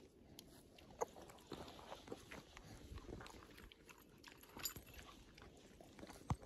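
A dog chewing a piece of jerky, a quiet run of scattered small crunches and clicks.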